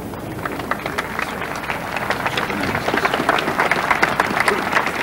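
Large crowd applauding, a dense patter of many hands clapping that swells over the first couple of seconds and then holds steady.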